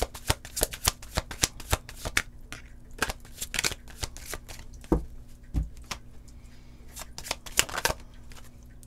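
A deck of fortune-telling cards being shuffled by hand: rapid crisp card slaps and flicks, dense at first, then coming in short spaced bursts with a couple of duller thumps about halfway, and stopping shortly before the end.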